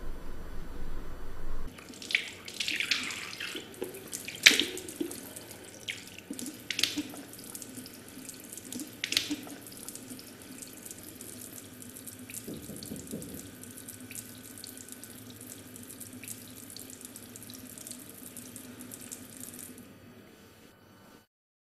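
Bathroom tap running into a sink, a steady hiss of water with a few splashes in the first ten seconds. The water stops near the end.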